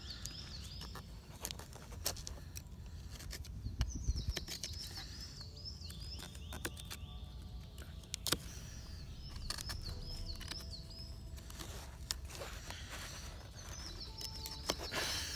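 Knife blade carving a small wooden spoon in short strokes: a string of light clicks and scrapes as the edge bites and shaves the wood. A songbird sings short chirping phrases every few seconds behind it.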